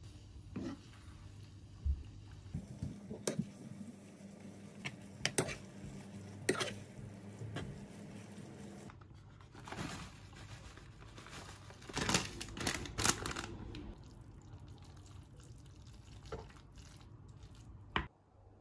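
Metal slotted spoon stirring and lifting spaghetti through a thick cream sauce in a nonstick frying pan: wet squelching, with scattered sharp clicks as the spoon knocks against the pan.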